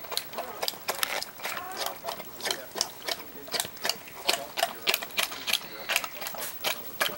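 Mother golden retriever licking her newborn puppy: quick, irregular wet smacking clicks, several a second.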